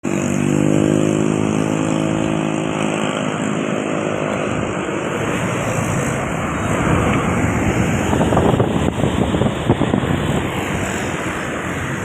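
Bus engine humming at a steady pitch, fading after about three seconds into a rough rushing noise of a vehicle going by, loudest and most ragged about eight to ten seconds in.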